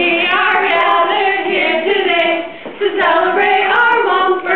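Several female voices singing together in harmony, with a short break about two and a half seconds in.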